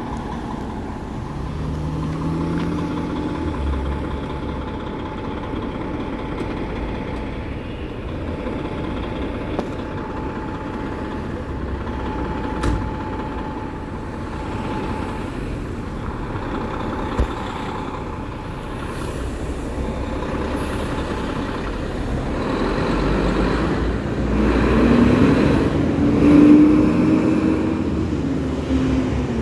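Fire apparatus engines running with a steady low drone. An engine rises in pitch as it revs up near the end, the loudest part.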